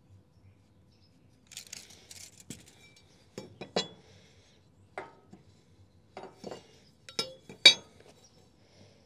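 A metal speed square and marking tools handled on a wooden trailer deck. After a brief rustling scrape, it gives an irregular run of sharp clinks and light knocks with a short metallic ring, the loudest clink near the end.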